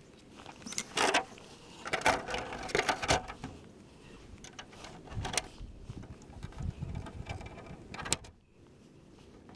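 Clear plastic body shell of an RC truck being handled and set onto the chassis: scattered plastic clicks, knocks and rustling, busiest in the first three seconds, with one more click near the end.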